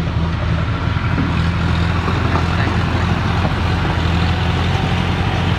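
John Deere diesel tractor engine running steadily at low revs under load as it hauls a trailer loaded with stones.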